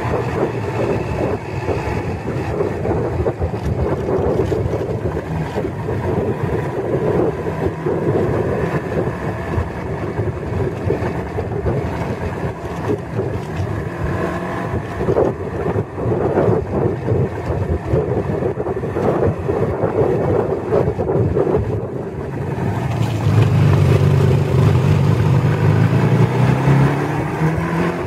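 Motorcycle engine running steadily under way, with wind buffeting the microphone. From about 23 to 27 seconds in, a deeper engine sound comes up louder, then eases.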